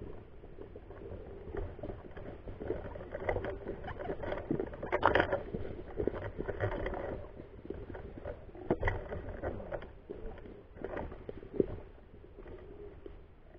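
Rustling and brushing of a ghillie suit and foliage against an airsoft sniper rifle carrying the camera, with irregular clicks and knocks of handling on the rifle. It is busiest and loudest about five seconds in.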